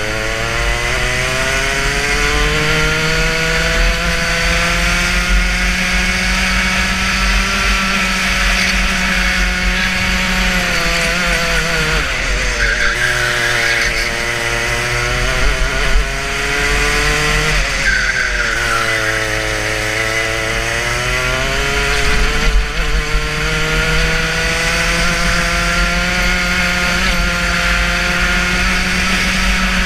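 Racing kart engine under hard acceleration, recorded onboard: its pitch climbs steadily, drops sharply twice near the middle as the driver lifts off for corners, then climbs again. A steady low rumble of wind and chassis sits underneath.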